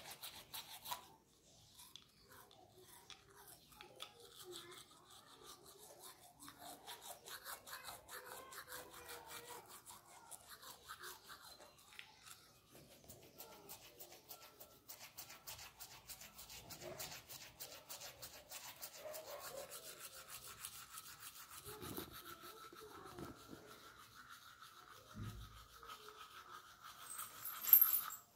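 Toothbrush scrubbing teeth in quick repeated strokes, fairly quiet. A brief loud bump comes near the end.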